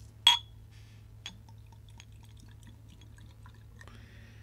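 Whisky being poured from a small glass sample bottle into a tasting glass: a sharp, ringing clink of glass on glass about a quarter second in, then a smaller tick and faint dripping ticks as the liquid runs in.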